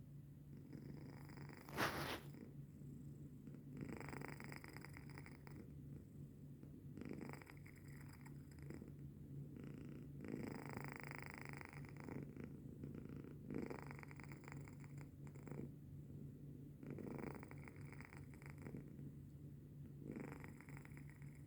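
Sleeping cat snoring softly, with a noisy breath about every two to three seconds over a steady low hum. A brief sharper sound about two seconds in is the loudest moment.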